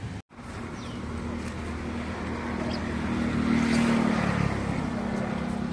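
Engine hum of a passing motor vehicle, getting louder to a peak about two-thirds of the way through and then easing off.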